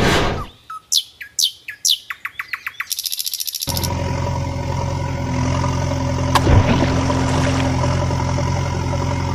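A short swish, then a quick run of falling chirps ending in a fast, even trill; about four seconds in, a steady heavy-machine engine drone starts suddenly and runs on, with a single clank about six and a half seconds in.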